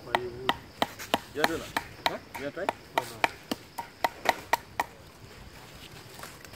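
A knife being batoned through a length of wood: a wooden baton strikes the blade's spine in quick, sharp knocks, about three or four a second, stopping just under five seconds in.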